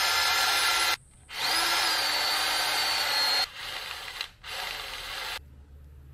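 Cordless drill boring holes into a carved wooden lure body: the motor whines steadily in two long runs with a short stop between, the pitch sagging slightly under load near the end of the second. Then come two shorter, quieter runs, and it stops a little after five seconds in.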